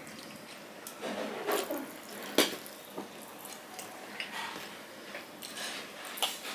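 Wet squelching of fish curry being scraped out of a steel bowl and mixed into rice by hand on a steel plate, with a sharp metal clink about two and a half seconds in as the steel bowl is set down, and a lighter clink soon after.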